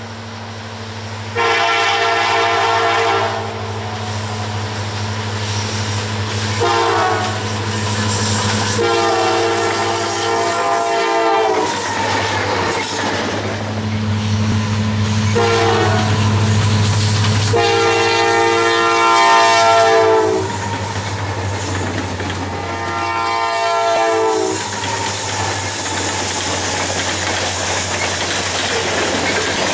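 Diesel locomotive air horn sounding six blasts, long and short mixed, for a grade crossing, over the steady low drone of EMD diesel engines. After the last blast, about 25 seconds in, the horn stops and freight cars roll past with a clickety-clack.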